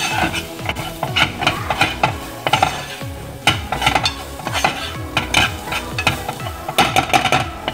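A metal spoon stirring and scraping minced garlic and coriander as they fry in oil in a pan, with a sizzle under many short scraping strokes against the pan bottom.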